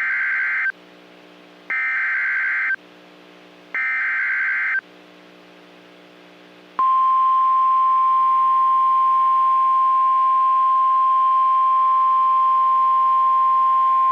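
Three bursts of Emergency Alert System SAME header data, the harsh warbling digital tones, each about a second long. About seven seconds in comes the steady NOAA Weather Radio 1050 Hz warning alarm tone, the signal that a new warning is about to be broadcast.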